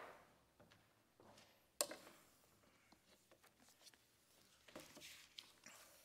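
Near silence. There is a sharp click about two seconds in, then faint paper rustling about five seconds in as a book is opened on a wooden pulpit.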